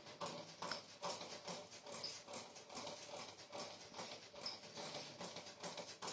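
Faint, soft taps and squishes about three times a second as hands press and pat a ball of stiff wheat-flour dough to shape it.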